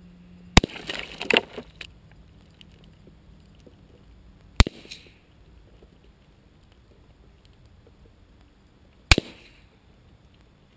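.22 LR gunshots striking a paint can, heard from right beside the target: three sharp cracks about four seconds apart. The first is followed by about a second of rattling and spattering.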